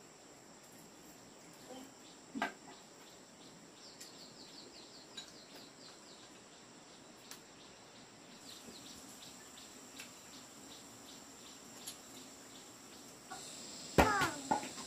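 Quiet ambience of insects buzzing steadily, with a bird's repeated chirping trill partway through and a few soft clinks of chopsticks on bowls. A louder, sweeping call-like sound comes near the end.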